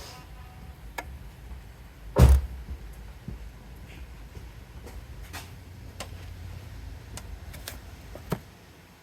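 Scattered sharp clicks and one loud clunk about two seconds in, from tools and parts being handled while working on an engine, over a low steady rumble that stops near the end.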